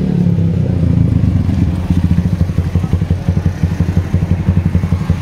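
Super Star 200 motorcycle's 200cc engine idling, settling into a rapid, even pulse about two seconds in.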